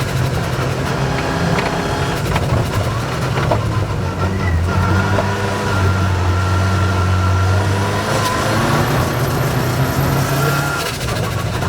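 Rally car engine running hard under load, its note stepping to a new pitch several times as the car changes gear, over a steady rush of tyre and road noise.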